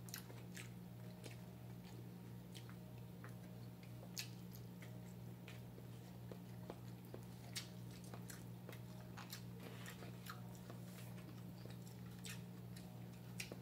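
Quiet eating sounds: chewing, with scattered small clicks and taps from fingers picking rice off paper plates, over a steady low hum.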